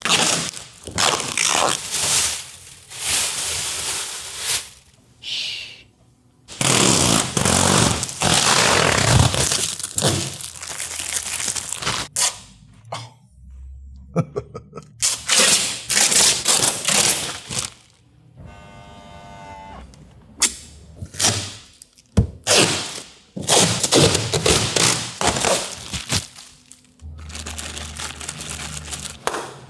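A quick series of close-up handling sounds from a new 2025 Mitsubishi Outlander: rustles, clicks, cracks and thunks, one after another. About two-thirds through there is a short pitched buzz, and low hums come in twice.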